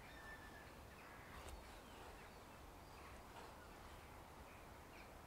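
Faint scraping strokes of a knife blade shaving thin curls off a stick, carving a feather stick; otherwise near silence.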